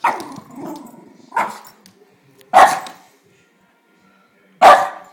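A dog barks four times at a Billy the Bass singing fish toy, single sharp barks over about five seconds, with the toy's song playing faintly after the first bark.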